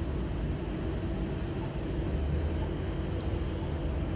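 Foundation drilling rig running: a steady low machinery rumble with a faint steady hum over it.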